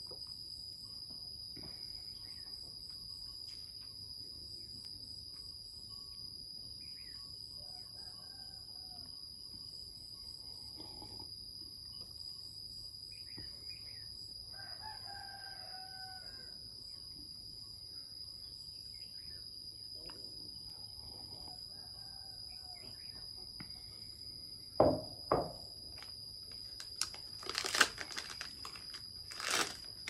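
Chickens and a rooster calling now and then over a steady high-pitched hum. Near the end two sharp knocks, then a plastic wrapper crinkling.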